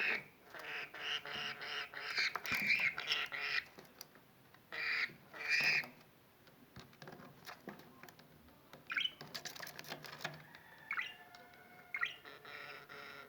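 Budgerigar chattering and squawking in dense runs of calls for the first few seconds and again about five seconds in, then quieter, scattered chirps.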